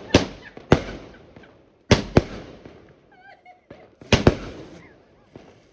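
Fireworks going off: about six sharp bangs, some in quick pairs, each with a short crackling tail.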